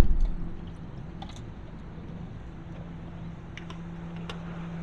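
Steady low hum of an idling boat motor, with a few faint light clicks.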